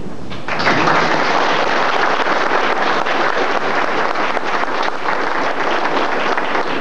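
Audience applause, breaking out about half a second in and going on as dense, steady clapping.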